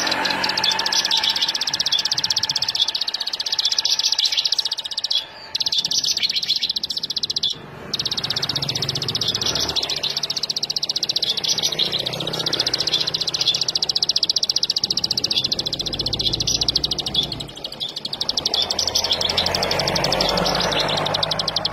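Bar-winged prinia (ciblek) singing a long, rapid, high-pitched chattering trill, with two brief breaks about five and seven and a half seconds in.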